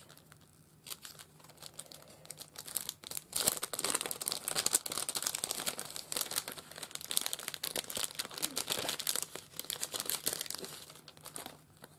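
A clear cellophane craft packet crinkling as hands open it and pull out paper ticket embellishments. Scattered light rustles at first, then dense crinkling from about three seconds in that eases off about a second before the end.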